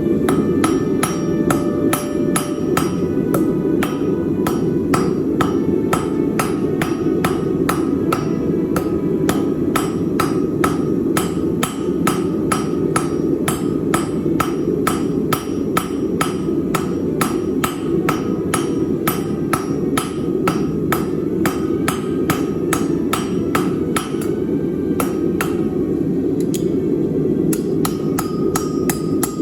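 Hand hammer striking on a Chinese-style turtle anvil with a cast iron body and tool steel face, in a steady even rhythm of about two blows a second, over a steady low rushing noise.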